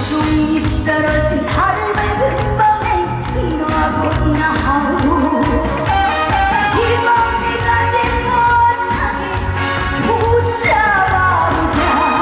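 A woman singing a Korean trot song live over a band backing with a steady drum beat.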